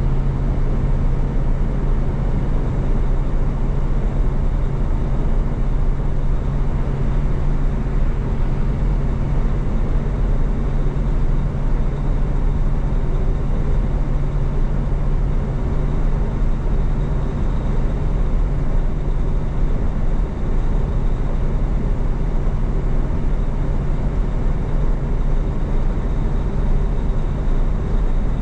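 Steady drone of a semi truck running at highway speed, heard inside the cab: diesel engine hum mixed with tyre and road noise. The engine hum eases slightly toward the end.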